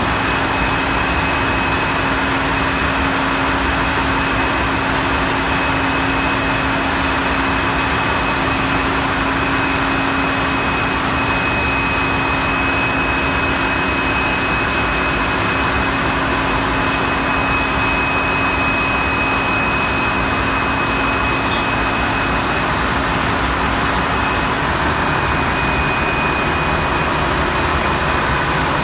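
Loud, steady engine-room roar from the ship's running STX-built MAN B&W auxiliary diesel generators, with a steady high whine throughout. A low hum underneath drops out near the end.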